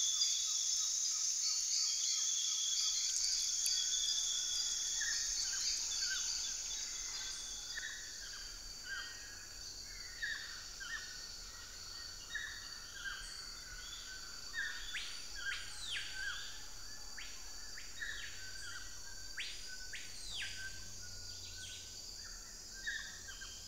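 Rainforest morning chorus: a steady high insect drone that slowly fades over the first several seconds, with many short bird calls and a few quick swooping calls through the second half.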